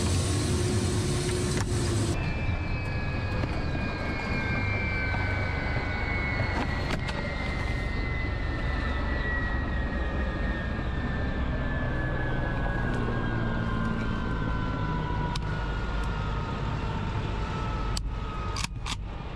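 Ka-52 helicopter's twin turboshaft engines winding down on the ground. There is a steady rush of noise under a whine that falls slowly in pitch, with a few sharp clicks near the end.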